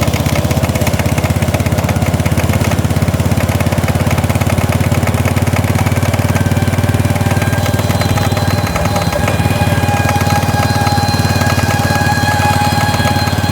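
Bajaj Discover motorcycle running, with a 'katar katar' rattle from the rear wheel; a steady whine joins about six seconds in. The rattle comes from a loose bearing bore in the wheel hub.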